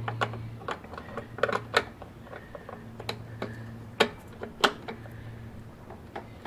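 Irregular light metallic clicks and taps of a hand tool working a stubborn nut loose inside a label printer's sheet-steel chassis. The sharpest clicks come about four seconds in, over a low steady hum.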